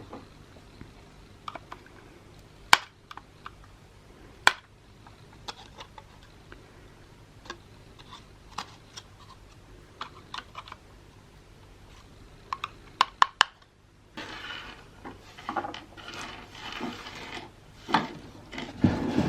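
Small sharp clicks and taps of the defibrillator's plastic casing and internal parts being handled during disassembly, with a few louder knocks. The taps come in a short cluster, and from about two thirds of the way in they give way to a denser stretch of rubbing and scraping.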